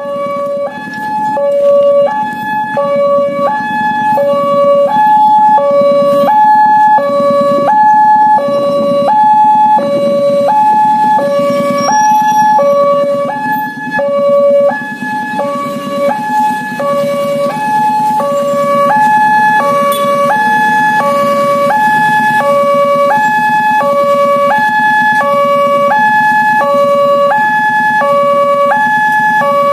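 Indonesian railway level-crossing warning alarm sounding: a loud electronic two-tone signal, a high and a low tone alternating in a steady cycle. It warns that a train is approaching and the barriers are closing.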